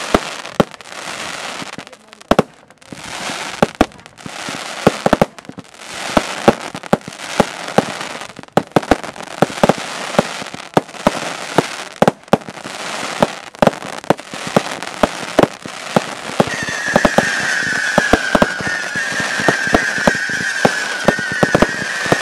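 Aerial fireworks going off: many sharp bangs over repeated bursts of crackling. About sixteen seconds in, a steadier hiss and a wavering high whistle join in.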